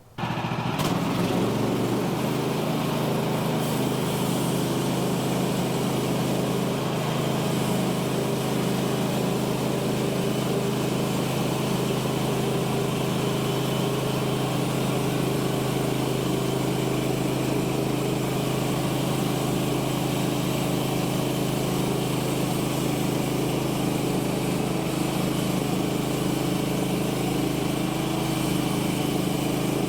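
Woodland Mills HM130 Max bandsaw mill running steadily, its gas engine held at an even speed while the blade cuts along the log. The sound comes in abruptly at the start and does not change.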